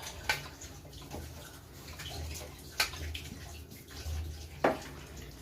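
Water splashing or running, with three sharp clinks spaced a couple of seconds apart.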